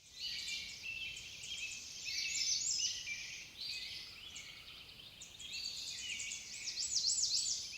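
Many small birds chirping at once in a dense, overlapping chorus of quick high chirps and falling notes, louder about two seconds in and again near the end.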